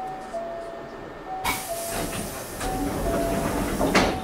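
Door-closing sequence aboard a Hankyu 6300 series train: a two-note chime repeating about every second and a half, then a loud air hiss from the pneumatic door engines starting about a second and a half in, and the sliding doors thudding shut near the end.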